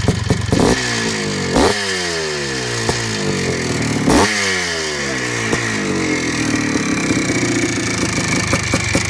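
The 1991 Yamaha WR500's big-bore single-cylinder two-stroke engine is blipped sharply about three times, its revs falling away after each blip. It then settles into a steady idle for the last few seconds.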